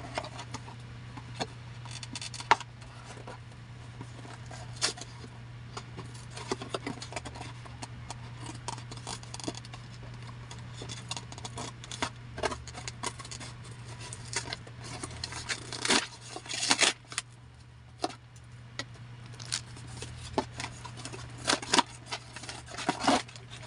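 Hands opening a courier package: irregular clicks, scrapes and rustling of packaging, with a steady low hum underneath.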